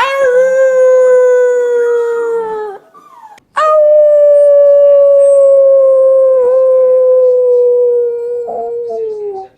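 Puppy howling: two long howls, the second about twice as long, each sliding slowly down in pitch.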